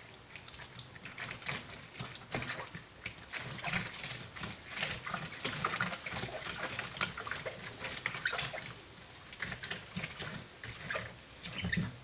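Hands squeezing and churning soaked shredded paper in water, an irregular run of wet squelches, crackles and small splashes as the paper is worked against the ridged basin. The paper is being soaked and broken down into pulp for papier-mâché.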